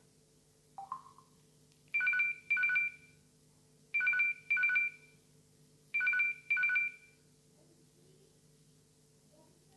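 LG KS360 mobile phone playing an old-style telephone-ring ringtone through its speaker: three double rings about two seconds apart, each a two-tone trill. A short blip comes about a second in.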